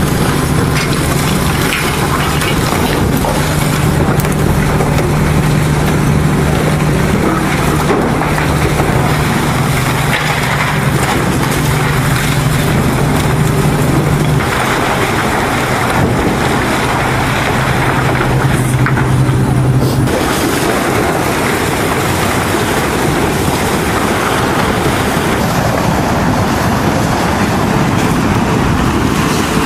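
Hitachi demolition excavator tearing down a concrete building: its diesel engine runs with a steady low hum while concrete crunches and breaks. The sound changes abruptly about fifteen and twenty seconds in.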